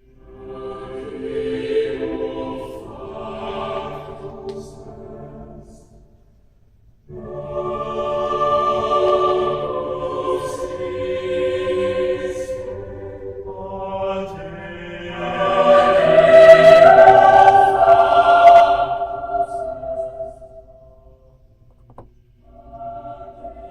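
Music with sustained singing voices, played back through a pair of Polk Audio S15 bookshelf speakers and picked up by a microphone. It comes in long held phrases that nearly stop about six seconds in and again near the end, and is loudest about two-thirds of the way through.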